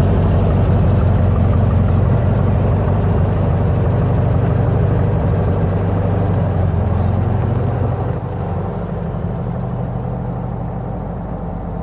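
A car engine running steadily at idle. There is a brief bump about eight seconds in, after which it runs a little quieter.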